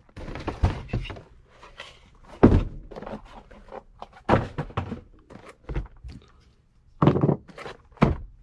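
Dull thuds and knocks at uneven intervals, about seven in all and the loudest about two and a half seconds in: boxes and gear being handled and set down, and a person shifting about on attic floor boards.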